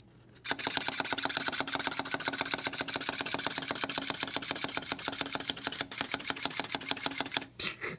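Rowlet Happy Meal toy's hopping mechanism clicking fast and evenly, about ten clicks a second, for about seven seconds before it runs down and stops.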